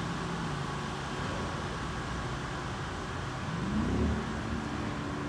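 Motor vehicle engine running steadily, rising in pitch and loudness about four seconds in as it accelerates.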